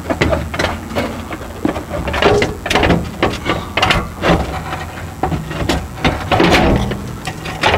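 Irregular metal knocks and scraping as a steel fifth-wheel landing gear leg is worked down into its mounting bracket, over a low steady hum.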